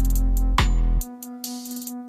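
Background electronic music with a deep bass line and a drum-machine beat; the full bass and drums drop out about a second in, leaving a quieter, thinner passage.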